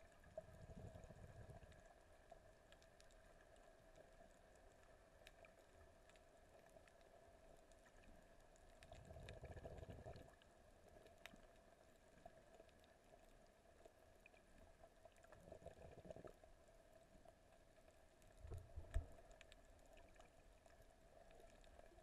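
Near silence: faint muffled underwater sound picked up through a camera's waterproof housing, with a few soft low rumbles.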